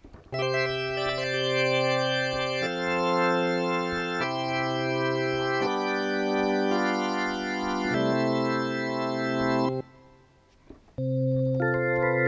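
Yamaha MX49 keyboard playing an organ voice: held, steady chords that change every two seconds or so, stopping a couple of seconds before the end, then one more chord comes in near the end.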